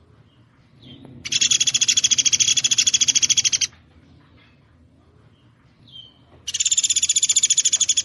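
Woodpecker (pelatuk beras) calling: two loud, rapid rattling trills of about ten notes a second. The first lasts about two and a half seconds, and the second, shorter one comes near the end.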